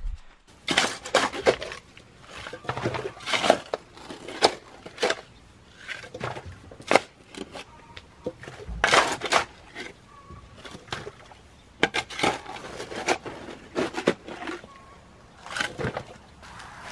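Shovel scraping into loose soil and dumping it into a post hole to backfill around a wooden post, with a run of irregular scrapes, knocks and thuds of dirt and stones.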